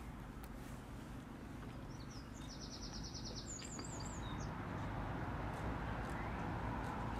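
A songbird sings a short, rapid trill a couple of seconds in, then a few high chirps, over a low rumble that grows gradually louder.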